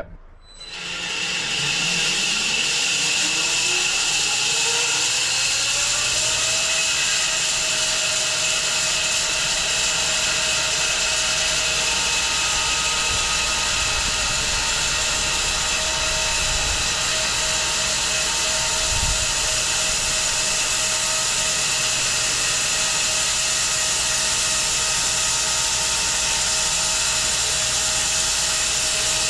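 Home-built 6 ft wide bandsaw mill starting up: a whine rises for about six seconds as it comes up to speed, then the mill runs steadily.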